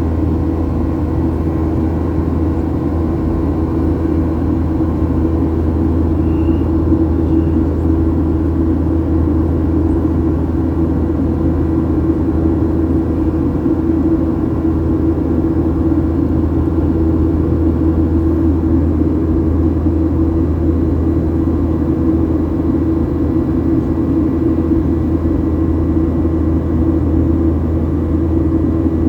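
Airliner cabin noise in flight: the jet engines and airflow make a steady, loud drone with a low hum and a few faint constant tones above it, unchanging throughout.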